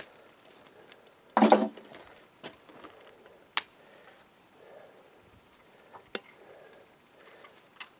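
Hand tools working the lock ring off the PTO driving shaft inside an International Harvester 414's clutch housing. There is a brief loud noise about a second and a half in, then a few sharp clicks spaced a second or more apart.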